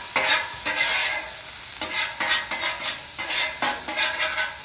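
A metal blade scraping across a steel flat-top griddle in repeated irregular strokes, pushing diced onion, jalapeño and bell pepper around as the vegetables sizzle.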